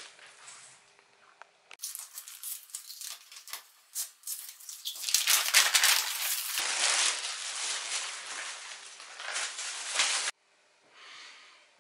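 Sheets of paper and graphite transfer paper rustling and crinkling as they are handled and lifted off a board, louder in the second half, then cutting off abruptly near the end.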